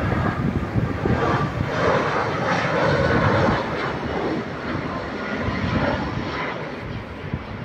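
easyJet Airbus A320-family jet airliner on final approach with its landing gear down, its engines passing overhead as a broad roar over a low rumble. The sound is loudest about two to three and a half seconds in, then fades as the plane descends away toward the runway.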